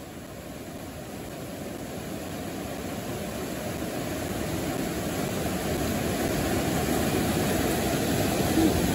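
Whitewater rapid rushing over rocks: a steady low roar of churning water that grows gradually louder.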